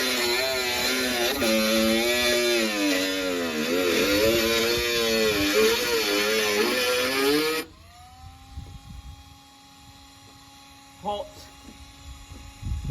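Dremel rotary tool with a cutting disc cutting rusted sheet metal out of a car body. Its pitch dips and recovers as the disc bites and eases off, over a harsh hiss from the cut. It cuts off suddenly about eight seconds in, leaving a faint whine, and a single click follows a few seconds later.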